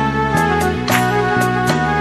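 Instrumental interlude of a Malayalam Christian devotional song: a held melody line over changing bass notes and light, regular percussion, with no singing.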